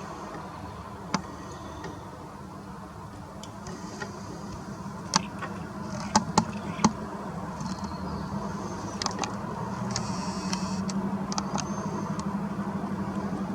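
Garden ambience: short, high bird chirps over a steady low hum that grows louder near the end, with a few sharp clicks, three of them close together about halfway through.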